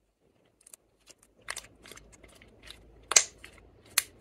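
Lipstick-coloured clear slime squeezed and kneaded in the hands, giving a string of sticky clicks and air-bubble pops that begin about half a second in. The loudest pop comes just after three seconds, and another sharp one about four seconds in.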